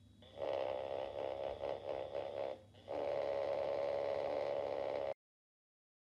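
Vibratissimo Panty Buster smart vibrator buzzing and rattling against a wooden tabletop while an attacker drives it remotely from a phone. It buzzes in uneven pulses for about two seconds, stops briefly, then buzzes steadily for about two seconds before cutting off suddenly.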